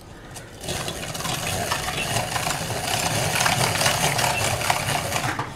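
Hand-cranked rotary egg beater whirring steadily, its gear wheel and metal beaters rattling as they whip eggs and sugar in a glass bowl. It starts a little under a second in.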